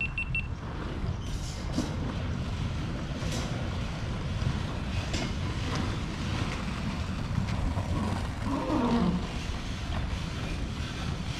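Steady low rumble of outdoor ambience, likely wind on the microphone, with a few light ticks and a short falling tone about eight and a half seconds in.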